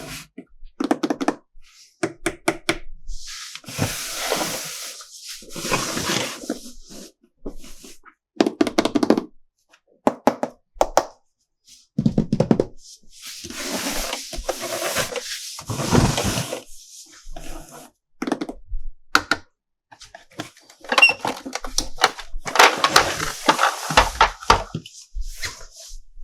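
Toy packaging being handled and opened: stretches of rustling and crinkling broken by many sharp clicks and knocks of plastic.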